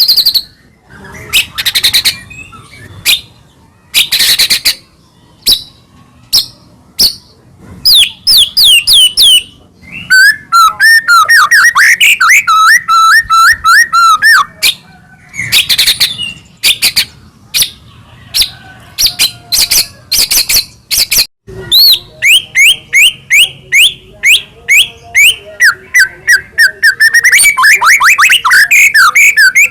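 White-rumped shama singing loudly, a long, varied song of sharp whistled notes, fast runs of repeated sweeping notes and a few harsh, scratchy calls.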